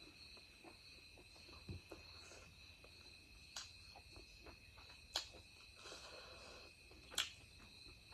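Faint eating noises of chicken being chewed: soft mouth smacks and a few sharp clicks, the loudest about 3.6, 5.2 and 7.2 seconds in. Under them runs a steady high insect-like trill.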